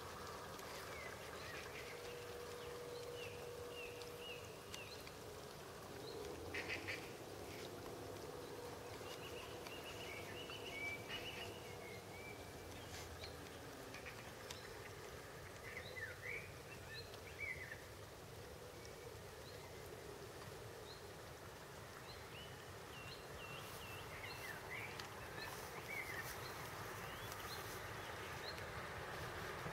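Wild birds calling in short scattered calls, with ducks quacking among them, faint against a steady outdoor background.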